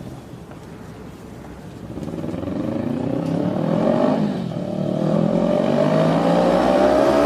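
Kawasaki Ninja 400's parallel-twin engine running low, then revving up from about two seconds in. Its pitch rises and it gets louder, dips once about halfway, then climbs again.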